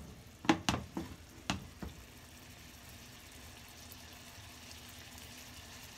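A wooden spatula knocks against a red nonstick sauté pan four times, then mushroom pan sauce sizzles low and steady as a knob of butter melts into it.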